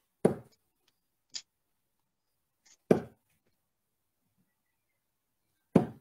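Three darts thudding into a bristle dartboard, one sharp thud every three seconds or so, with a faint click between the first two.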